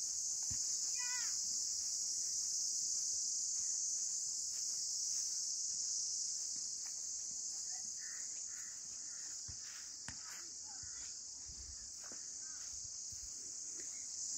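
Steady, high-pitched chorus of insects, unbroken and even, with a brief wavering chirp about a second in.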